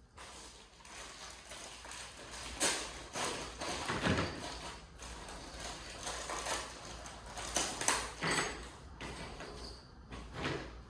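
Irregular scraping and knocking as a wooden cabinet door is handled and worked on, with several louder knocks spread through it.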